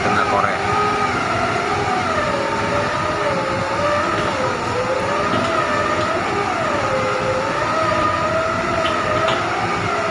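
Heavy diesel construction machinery running steadily, with a high whine that wavers slowly up and down in pitch over a continuous mechanical rumble.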